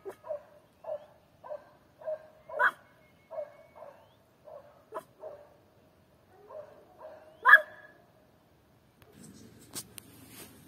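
Prague Ratter, a tiny toy dog, barking repeatedly in short high yaps about every half second, with two louder, sharper barks about two and a half and seven and a half seconds in. The barking stops about eight seconds in, and a single click follows near the end.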